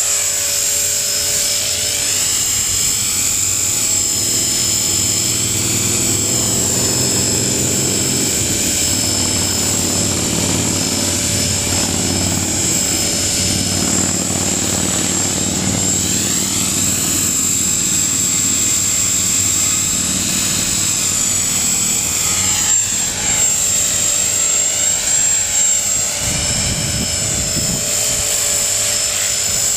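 Electric 450-size RC helicopter (HK 450 T-Rex clone) in flight: a steady high whine from the brushless motor and gears over the whoosh of the rotor blades. The pitch swings up and down repeatedly as the helicopter manoeuvres, and the rotor noise grows stronger in the middle stretch.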